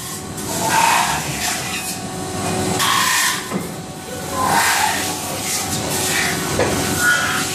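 Machine noise from a robot-loaded metal-spinning cell, with several short hissing bursts of air as the suction gripper picks up and moves a sheet-metal blank.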